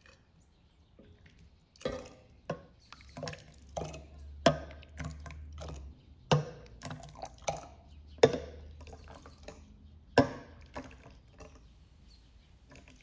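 A scoop knocking and clinking against an enamel basin and the rim of a glass jar as pomegranate seeds and juice are ladled into the jar. The knocks come irregularly, about ten of them, with wet pouring and dripping between.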